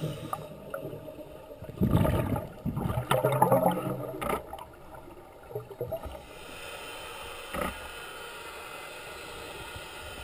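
Underwater sound of a scuba diver's exhaled bubbles gurgling out of the regulator in bursts a second or two apart, then a steadier, quieter underwater noise from about six seconds in.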